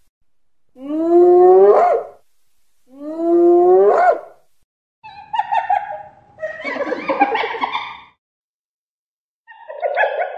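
Spotted hyena calling: two long whoops, each rising in pitch, then rougher, harsher calls, with a short pause before one more near the end.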